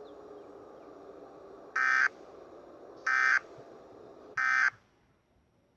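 Emergency Alert System end-of-message signal: three short bursts of buzzy digital data tones, about a second apart, over a low hiss that drops away just after the last burst.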